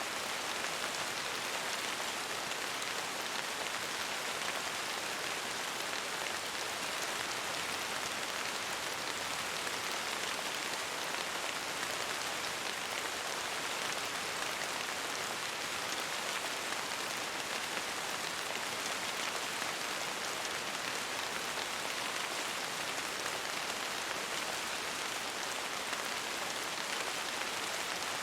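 Steady rain falling, an even hiss of many drops that holds constant with no thunder or gusts.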